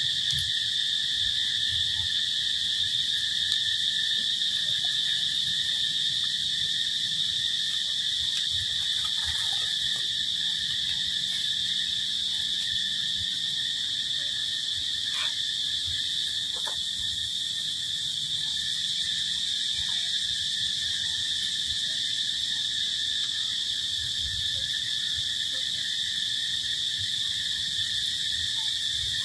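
Steady chorus of insects: an even, high-pitched drone with a fainter lower band, never breaking, with a few faint clicks.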